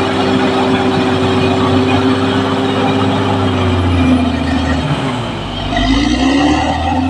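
Caterpillar D6R XL bulldozer's diesel engine running under load. About five seconds in, the engine note drops and shifts in pitch, then picks back up.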